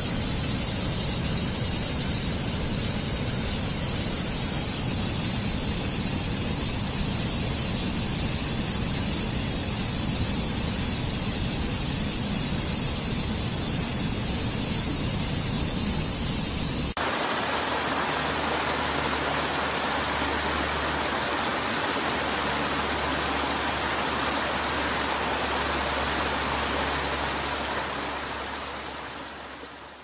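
Steady rush of water cascading over rocks in a stream. About seventeen seconds in it switches abruptly to a different, less hissy rush of water, which fades out over the last few seconds.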